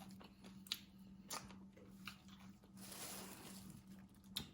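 Faint eating sounds: a few scattered small clicks and smacks of chewing and picking at crab, with a soft breathy hiss a little after halfway, over a steady low hum.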